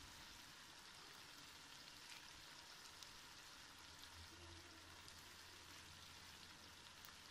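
Faint sizzling and crackling of keema (minced meat) cooking in a pot as its yogurt liquid cooks down, over a low steady hum.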